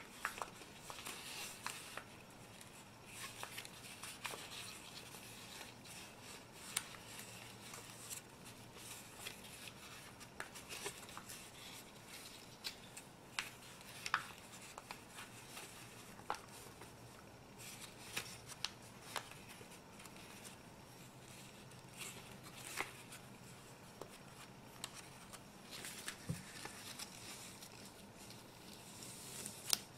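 Paper being creased and pleated by hand: scattered crisp crackles, snaps and soft rustles as fingers pinch mountain and valley folds into a many-pleated sheet and collapse them together.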